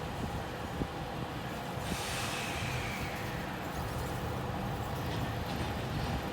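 Freight train running past on the rails with a steady rumble. About two seconds in, a hiss sets in with a faint squeal that slowly falls in pitch.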